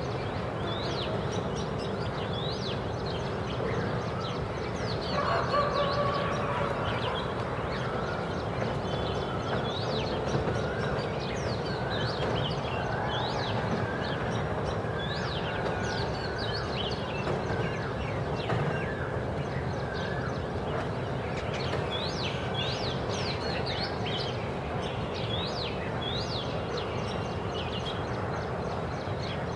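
Oriental magpie robin singing: short, sharp whistled notes that rise and fall, repeated again and again over a steady background hum. A louder, lower honk-like call stands out about five seconds in.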